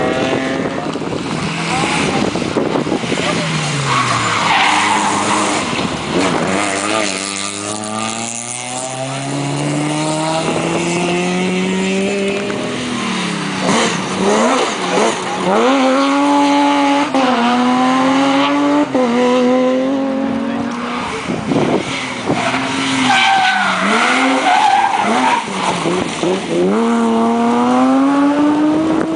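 Rally car engines revving hard through gear changes as they drive the stage, the engine pitch climbing and dropping sharply again and again. Among them is a BMW 3 Series rally car accelerating through the corner.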